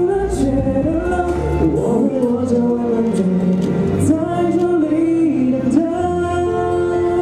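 A man singing a pop song into a microphone over instrumental accompaniment, his voice sliding between held and moving notes.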